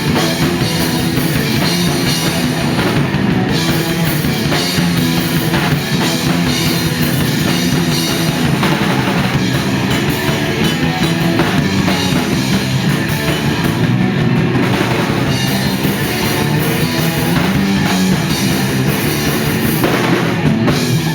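Rock band playing live with a drum kit, loud and continuous, with no singing.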